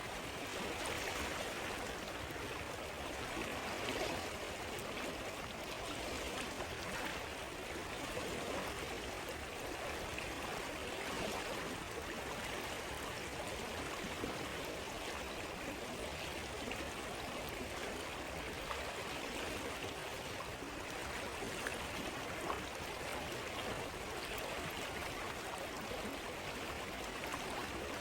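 A river or stream flowing with a steady rushing and burbling, with a few faint sharp crackles from a campfire.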